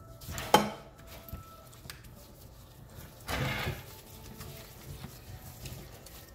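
A sharp clink of kitchenware about half a second in, then a short scraping shuffle a few seconds later as gloved hands grab and turn a large steak on its plate.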